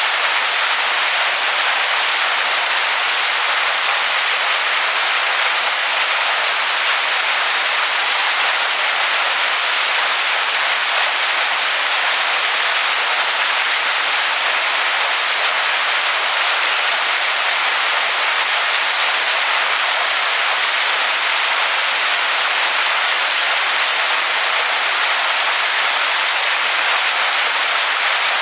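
Waterfall pouring over rocks, a steady loud hiss of falling water with little low rumble.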